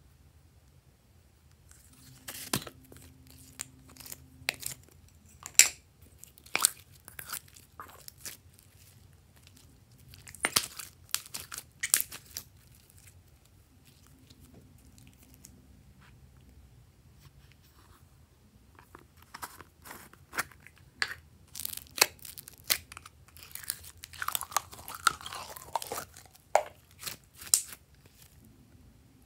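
Glossy slime being squeezed, folded and stretched by hand, giving sharp clicks and pops from trapped air. The pops come in clusters, with a quieter stretch in the middle.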